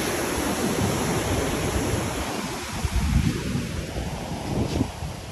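Surf breaking and washing up a sandy beach, a steady rush of noise, with wind gusting on the microphone and growing stronger after about two seconds.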